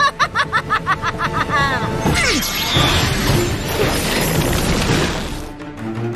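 Dramatic cartoon soundtrack music with a fast run of repeated rising notes. About two seconds in, a loud crashing, rushing sound effect comes in and lasts a few seconds before fading.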